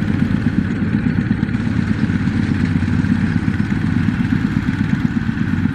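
Two-wheel walking tractor's single-cylinder diesel engine running steadily with a rapid, even chugging.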